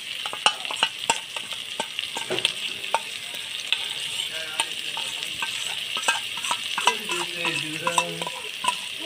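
Onion-paste masala sizzling in hot oil in a kadai while whisked sour yogurt is scraped into it from a steel bowl, the spatula making frequent light clicks against the bowl and pan. The flame is very low so the yogurt does not curdle.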